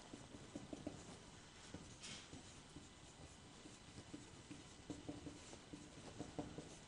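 Faint scratching strokes of a marker writing words on a whiteboard.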